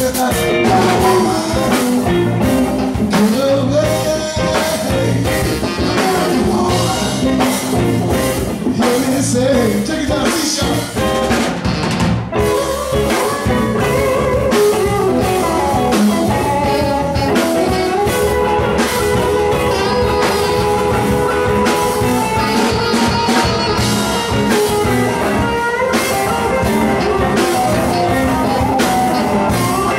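Live band playing a blues-rock jam on electric guitars, bass guitar and drum kit, with a steady beat and held guitar notes.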